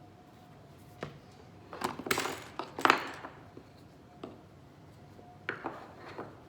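Light knocks and clatter of small wooden parts and hand tools being handled and set down on a workbench: one knock about a second in, a busy cluster of clatter around two to three seconds in, and a few more knocks near the end.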